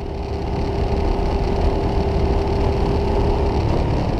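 Ducati Diavel's L-twin engine running at cruising speed, heard from a bike-mounted camera together with wind rush. The steady drone swells over the first second, and a steady hum in it drops away shortly before the end.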